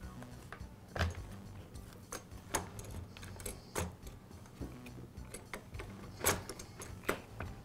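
Plastic trimmer housing halves being pried apart and shifted on a metal tabletop: a series of sharp plastic clicks and knocks, about five, the loudest about six seconds in.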